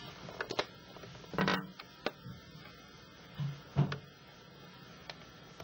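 A few sharp clicks and dull knocks of handling noise, the loudest a short scraping burst about one and a half seconds in, over a faint low steady hum.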